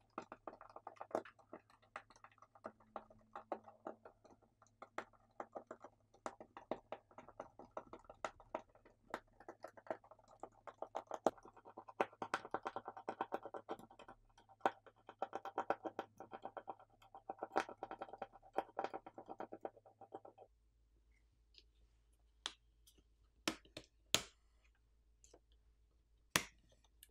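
Small Phillips screws being backed out of a smartphone's plastic inner cover with a precision screwdriver: a long run of fast, fine clicking and scraping from the bit in the screw heads. After about twenty seconds this gives way to a few separate sharp clicks.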